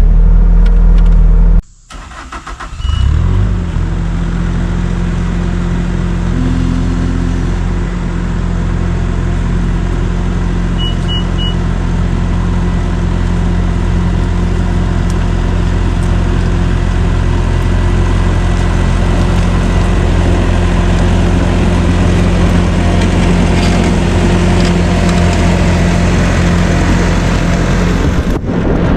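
Skid steer engine running steadily under load as the machine works itself free and drives out. After a brief cut about two seconds in it runs on evenly, with three short high beeps about eleven seconds in.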